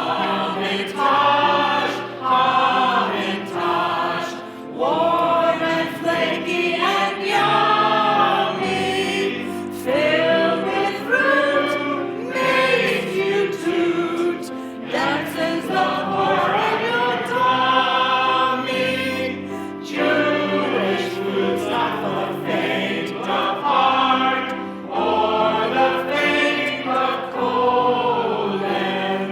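A group of voices singing a song together over instrumental accompaniment with steady low notes.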